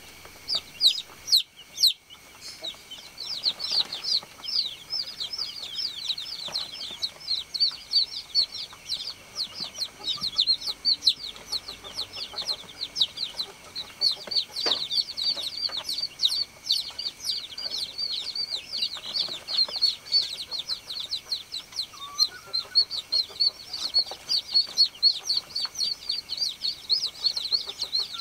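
Baby chicks peeping without a break: many short, high calls, each sliding downward, overlapping several to the second. The calls drop out briefly about a second and a half in. A faint steady high tone runs underneath.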